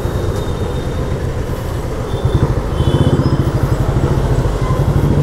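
Motorcycle engine running under way with fast, even exhaust pulses, growing louder about three seconds in.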